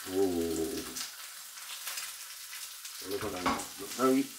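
Food sizzling steadily in a hot frying pan, a crackling hiss, with brief bits of a man's voice near the start and again about three seconds in.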